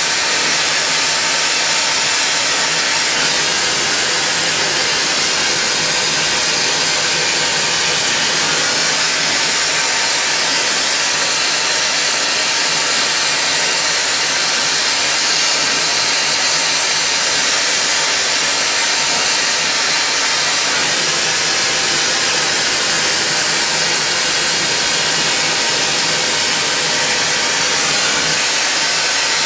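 Steady hiss of a lit glassworking hand torch, its flame held on a glass tube turning in a glass lathe.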